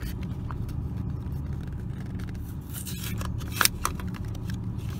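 Short plastic clicks and taps from handling the third brake light housing and its bulb, the sharpest pair a little past three and a half seconds in, over a steady low hum.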